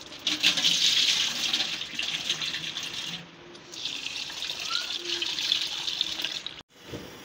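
Water from a kitchen tap splashing into a steel bowl of red lentils as they are rinsed over a stainless steel sink, in two spells with a short lull between. It cuts off suddenly near the end.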